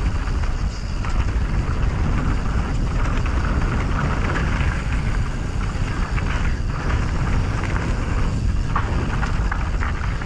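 Wind rushing over the microphone with the rumble and crackle of a Canyon Strive mountain bike's tyres rolling fast over a dirt bike-park trail.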